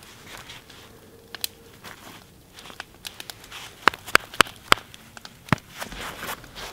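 Deer bones being handled on a wooden stump: soft rustling and crackling, then about five sharp knocks in quick succession a little past halfway.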